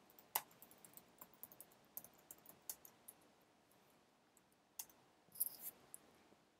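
Faint keystrokes on a computer keyboard: sparse single taps, then a quick run of several near the end.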